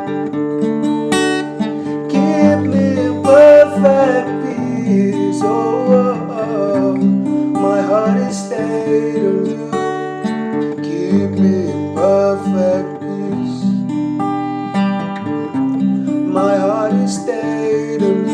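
Worship-song music carried by strummed and plucked acoustic guitar over held chords, with a steady rhythmic pattern and a few wordless vocal lines.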